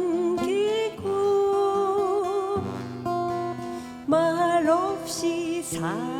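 Acoustic guitars strumming a slow Korean folk song, with a voice singing long held notes with vibrato over them.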